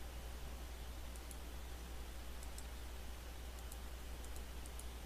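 Faint computer mouse clicks, about ten of them, short and unevenly spaced, over a steady low electrical hum and hiss.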